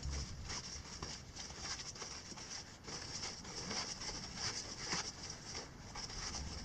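Nylon fabric rustling and crinkling in quick, irregular scrunches as a sleeping bag is stuffed by hand into a stuff sack.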